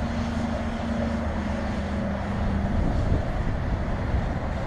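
Wind rumbling on the microphone, with the hum of an Ehang Ghost quadcopter's propellers as it flies away: the hum drops slightly in pitch about a second in and fades out a little under three seconds in.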